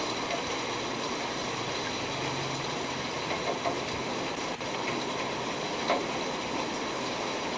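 Steady background hum and hiss, with a couple of faint soft knocks about two-thirds of the way through.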